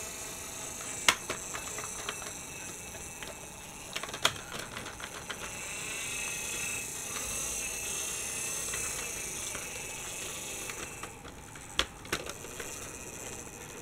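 Dickie Toys City Liner toy tram rolling along plastic toy track: a steady light mechanical whir with sharp clicks here and there. The loudest click comes about a second in, and two come close together near the end.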